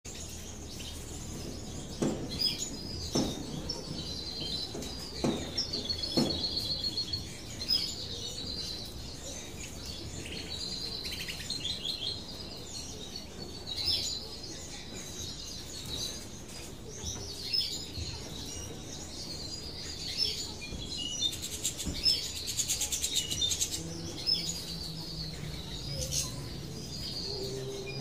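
Small finches chirping and twittering in quick, high trills, with a buzzier trill about three-quarters of the way through. A few soft knocks sound about two to six seconds in.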